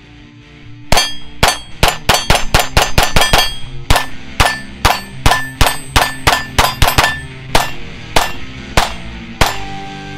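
Ruger Mark IV .22 LR pistol firing a string of about two dozen shots at steel targets, the hits ringing with a metallic clang. The shots come quickly at first, about four a second, then space out toward the end.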